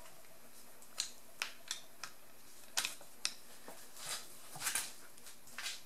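Socket and extension bar on cylinder head bolts during their final quarter-turn tightening: a string of sharp metal clicks, then a few short scrapes in the second half.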